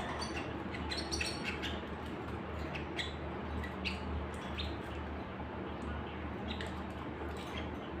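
Small caged birds, canaries among them, giving short scattered chirps rather than full song: a quick cluster about a second in, then single chirps every second or so, over a steady low hum.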